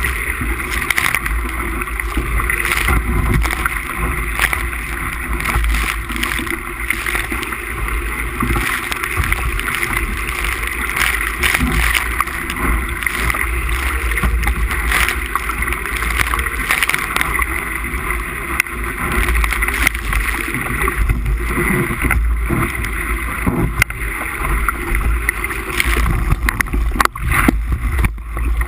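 Wind buffeting the microphone in a steady low rumble, over water rushing and splashing along the hull of a Musto Skiff sailing in strong, gusty wind.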